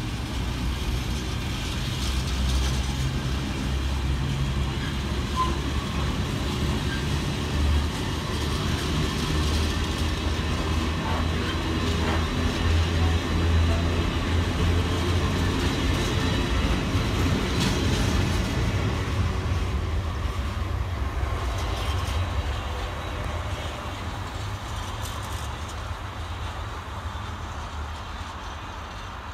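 Container freight train's flat wagons rolling past: a steady low rumble of wheels on the rails, fading over the last several seconds as the end of the train moves away.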